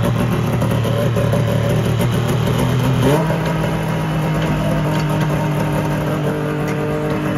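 Snowmobile engine running steadily. About three seconds in, its pitch rises a step and then holds at the higher speed.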